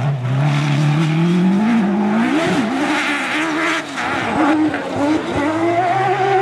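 Off-road rally car engine at full throttle on a dirt stage. The engine note climbs for about two seconds, then drops and rises again repeatedly through gear changes, over a constant hiss of tyres and gravel.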